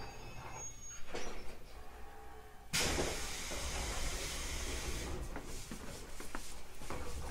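Compressed air from an 811 series electric train's pneumatic equipment, heard from inside the car. A knock comes about a second in, then a sudden loud hiss of air about three seconds in that settles into a steady hiss over a low rumble.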